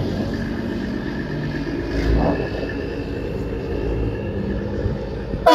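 Diesel engine of a long-hood American semi tractor running steadily as the truck pulls away at low speed. A loud truck horn blast starts right at the end.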